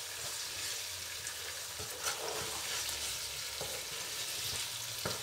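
Chicken pieces with onions sizzling as they brown in hot oil in a pot, stirred with a wooden spoon that knocks against the pan a few times.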